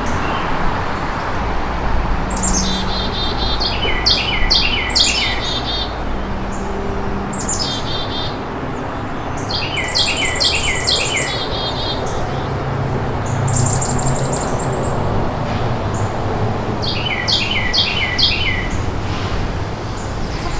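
A small songbird singing short phrases of quick, repeated falling notes, about six phrases a few seconds apart, over a low steady rumble.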